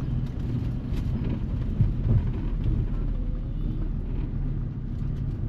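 Camper van engine running with a low, steady drone and road rumble, heard from inside the cab.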